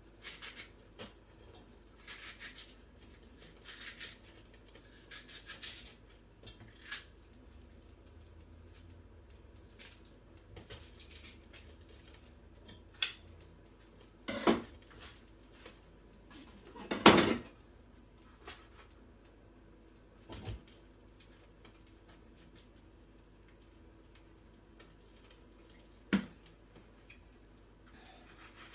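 Pots, pans and cooking utensils being handled, giving scattered clinks, knocks and short scrapes, with the loudest clanks a little past the middle and one more near the end.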